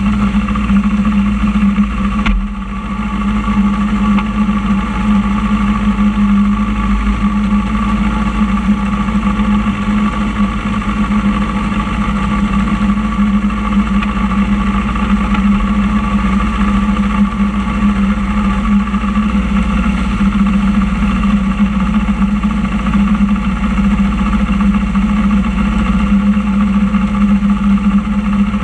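Motorcycle engine idling steadily, picked up close by a camera mounted on the bike's front fairing, with a brief dip in level about two seconds in.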